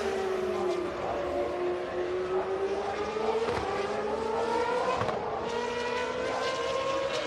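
GP2 race car engine, a Mecachrome V8, running: its note drops for about two seconds, then climbs steadily as the car accelerates, with a few short clicks along the way.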